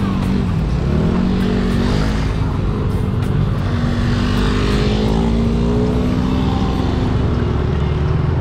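Motor scooter engine running under way, its pitch rising and falling slowly with the throttle.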